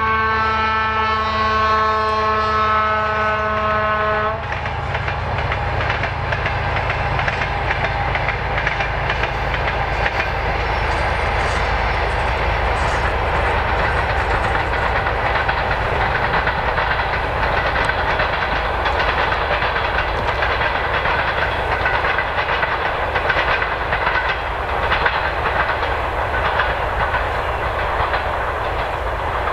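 A 2M62U diesel locomotive's typhon horn sounds a steady chord that cuts off about four seconds in. The train then runs past, its diesel engine rumbling under the passenger coaches' wheels clicking over the rail joints.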